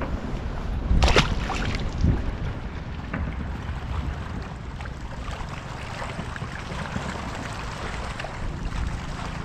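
Wind buffeting the microphone over water lapping against a kayak, with a loud sharp noise about a second in and a smaller one about a second later.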